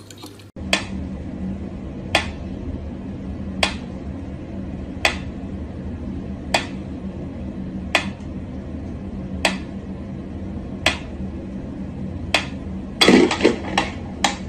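Mechanical pendulum metronome ticking at a slow, steady beat, about one tick every second and a half, over a low hum. A louder burst of knocks and clatter comes near the end.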